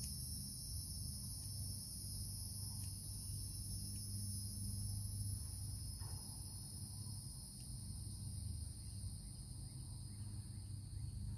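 A few faint scissor snips trimming loose fabric ends off a handmade fabric flower, over a steady high-pitched background drone and a low hum.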